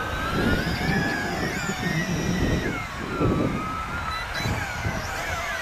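Yizhan Tarantula X6 quadcopter's motors and propellers whining overhead, the pitch wavering up and down as it holds its position against a light wind, over a low rumble of wind on the microphone.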